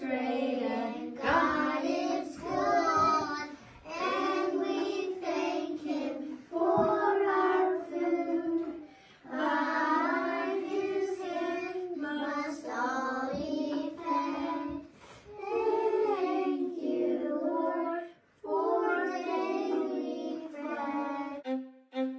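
Young children singing a song in short phrases, with brief pauses between them.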